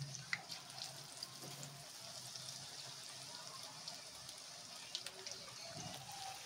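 Faint sizzling of pakoras frying in oil: a low steady hiss with scattered light crackles.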